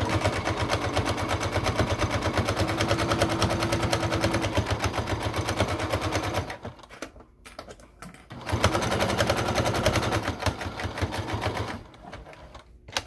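Electric sewing machine stitching through layered fabric, running fast with a steady rapid clatter of the needle: a run of about six seconds, a pause of about two seconds, then a second run of about three seconds. It is sewing a basting stitch along the top edge of a fabric piece.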